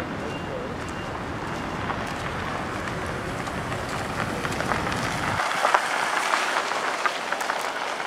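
Outdoor street noise with a low rumble that cuts off abruptly about five seconds in, then a crackly hiss with small clicks and crunches from footsteps on a dirt and gravel roadbed.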